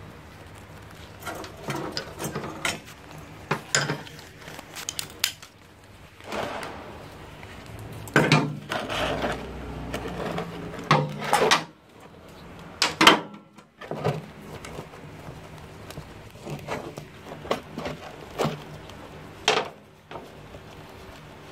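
A socket wrench loosening the oil drain bolt under a Lindy 125cc engine: irregular metal clicks, clinks and knocks from the tool on the bolt and the drain pan, the loudest about two-thirds through.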